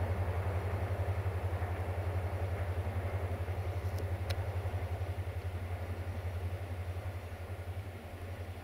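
Diesel train engine giving a steady low throb, slowly fading as the train moves away.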